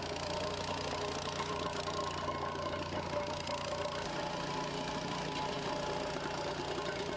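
Small engine of a vibratory plate compactor running steadily with a constant mechanical drone.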